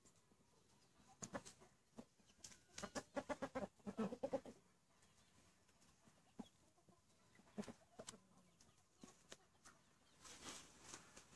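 Australorp chickens clucking, mostly faint, with a quick run of short clucks from about two and a half to four and a half seconds in and a few single clucks after.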